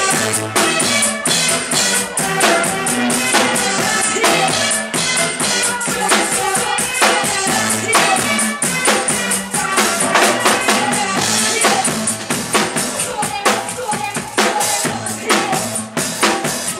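Live drum kit played over a DJ's dance track: loud, continuous music with a steady beat of dense drum hits.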